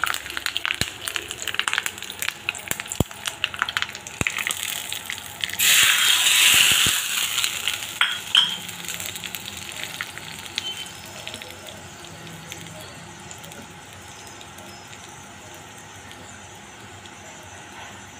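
Mustard and cumin seeds and leaves crackling in hot oil in a small steel pan for a tadka. About five and a half seconds in comes a loud sizzling hiss lasting about a second and a half as the hot tempering is poured onto the yogurt raita, then a short clink. After that the sound drops to a quiet, steady level.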